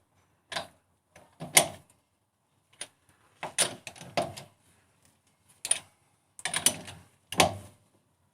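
Hand ratchet and socket doing up a car's wheel nuts: a series of separate short metallic clicks and knocks, some in quick little clusters, with pauses between the strokes.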